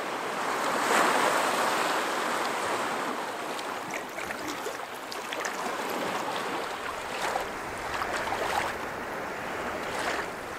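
Water lapping and splashing around a canoe under way on open lake, with small waves washing against rock, loudest about a second in. A few light splashes and drips near the end.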